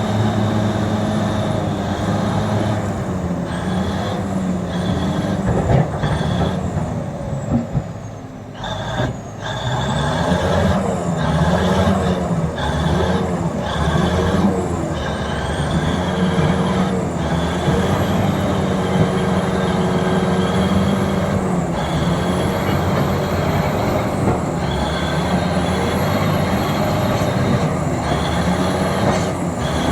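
Bulldozer's diesel engine working under load, its pitch wavering as the load changes, with a high whine wandering above it. The engine drops off briefly about eight seconds in, then picks up again.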